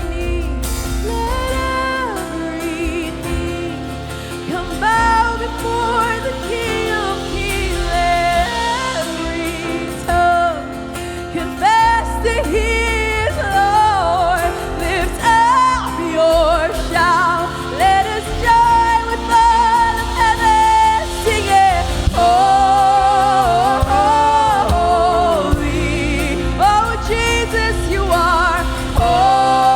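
Live contemporary worship music: a singer with vibrato, held notes and ad-lib runs over a full band.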